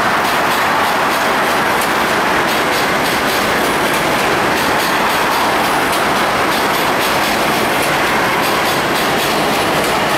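R32 subway train of stainless steel cars running over a steel bridge: a loud, steady rumble of wheels on rail with a clickety-clack of rail joints.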